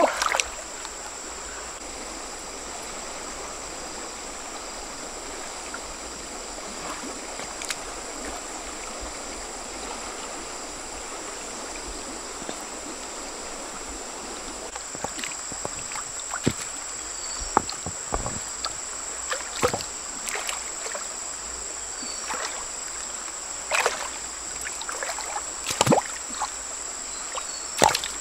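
Shallow stream water flowing steadily while stones are set into the streambed by hand, with scattered knocks of rock on rock and small splashes, more of them in the second half. A steady high-pitched tone runs over it.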